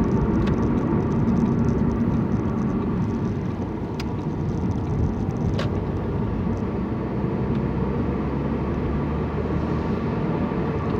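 Car cabin noise while driving: a steady rumble of engine and tyres on the road, with two brief clicks in the middle.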